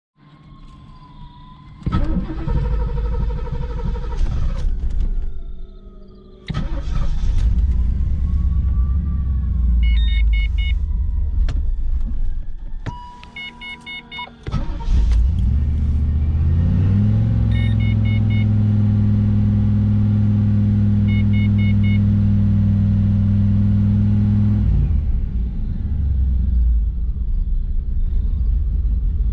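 1987 tuned-port-injected 350 small-block V8 starting when cold: it catches about two seconds in and runs unevenly, its sound dropping away twice. It is then brought up to a raised speed and held there steadily for about seven seconds before falling back to idle. The hard starting and hesitation are the owner's complaint for this engine.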